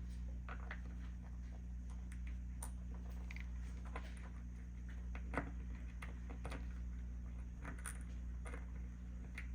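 Small metal fidget-slider parts clicking and tapping against each other as they are handled and fitted together. The sharpest click comes about five and a half seconds in, over a steady low hum.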